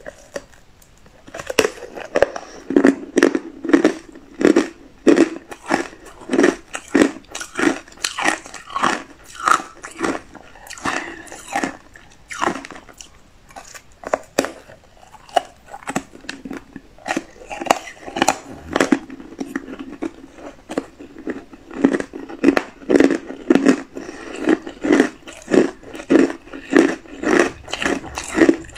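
A slab of matcha-powdered ice being bitten and chewed up close: a long run of hard, sharp crunches about two a second, starting a second or so in.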